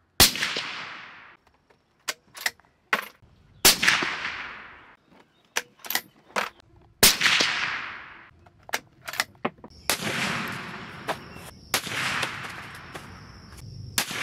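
Suppressed .308 Winchester rifle shots from a Ruger American fitted with a Silencer Co Hybrid 46 suppressor. There are four sharp reports a few seconds apart, each trailing off in a long echo, with shorter clicks and knocks between them.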